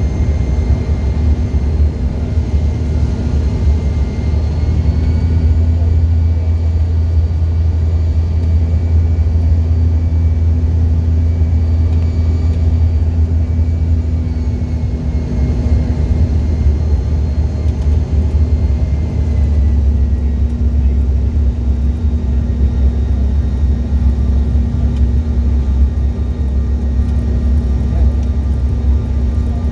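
Jet airliner cabin noise on final approach with flaps extended: a steady low drone of engines and airflow, with a faint high whine that dips slightly in pitch about two-thirds of the way through.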